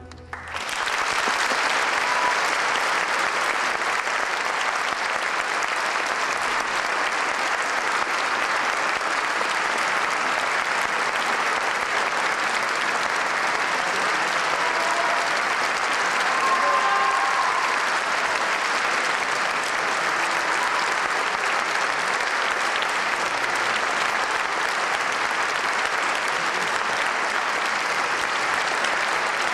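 A concert audience applauding steadily, the clapping rising within the first second as the orchestra's last chord dies away.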